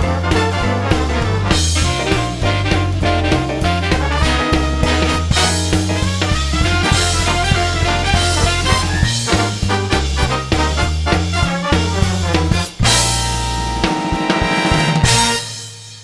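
Background music with drums and brass and a steady beat. It breaks off briefly a little before the end, then finishes on a held chord that fades out.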